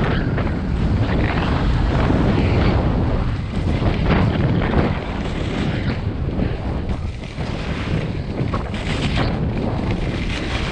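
Wind buffeting the microphone of a skier's camera: a loud, steady, deep rush of noise that eases slightly in the second half.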